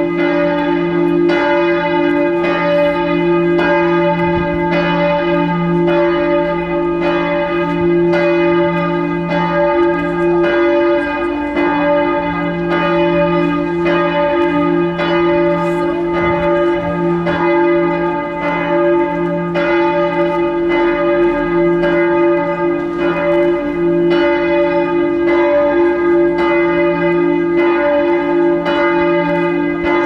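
Large church bell of the Meissen Frauenkirche tolling steadily, struck about once every second, each stroke ringing on into the next with a deep hum under it.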